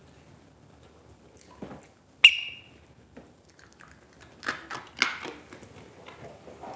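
A single sharp click with a brief ringing tone about two seconds in, followed a couple of seconds later by a few lighter knocks and rustling.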